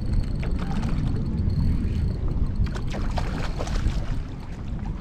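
Low wind rumble on the microphone over water lapping at the hull of a small fishing boat.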